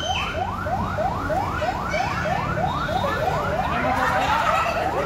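Electronic siren of a fire truck sounding in yelp mode: a fast, repeating rising wail of about three sweeps a second.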